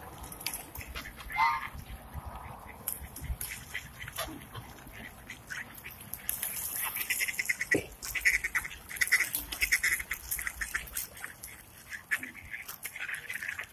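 A crowd of ducks and geese calling at once, many short overlapping quacks and honks that grow busier about halfway through.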